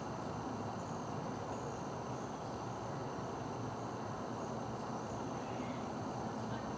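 Crickets chirring steadily, a thin high trill over a constant low background hiss.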